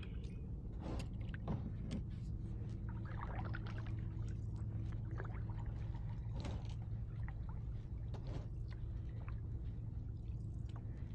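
Kayak paddle strokes: the blades dip, splash and drip in calm water every second or so, over a steady low hum.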